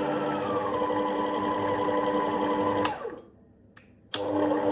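Electric cake mixer running as it beats cake batter, its motor whine settling to a lower pitch after being slowed. About three seconds in it clicks off and winds down, then a second later clicks back on and runs steadily again.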